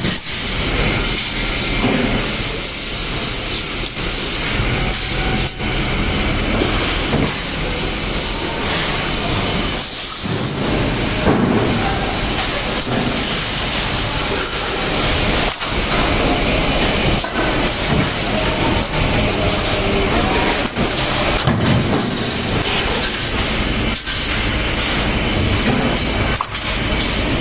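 Sheet-metal stamping press and press-shop machinery running: a steady, loud mechanical noise with hiss, broken by a few sharp knocks at irregular intervals.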